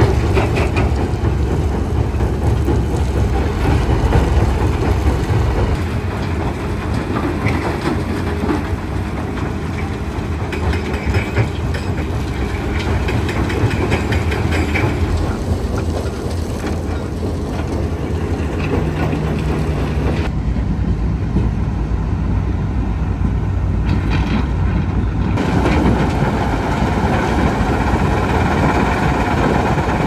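Mobile jaw and impact crushers running: a steady heavy rumble of diesel engines under a continuous rattle and clatter of rock being crushed. The clatter thins for a few seconds past the middle, then comes back.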